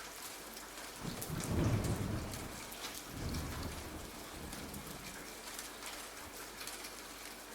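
Steady rain falling, with a low rumble of thunder that swells about a second in and fades, and a weaker second roll around three seconds in.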